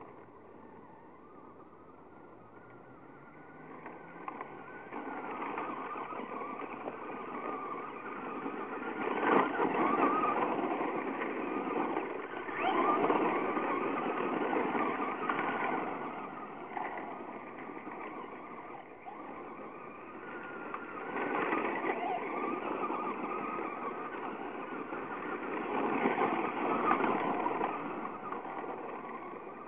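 Traxxas Slash radio-controlled truck driving hard on gravel: its motor and tyres crunching through loose gravel. The sound swells and fades several times as the truck speeds up, turns and passes. It is quiet for the first few seconds.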